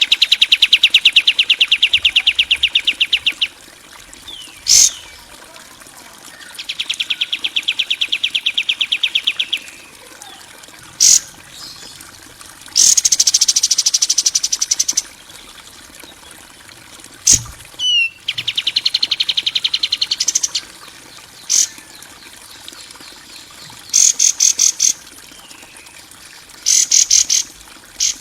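Harsh songbird-training master track: rapid buzzing trills about three seconds long, repeated several times, broken by single sharp chips, with short high rattles near the end.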